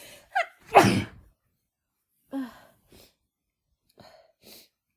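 A woman sneezes once, hard, about a second in, right after a sharp rising "ah" catch of breath. A short falling-pitch sigh and a few soft breaths follow. The sneeze is from a head cold, set off by chhinkni sneezing powder.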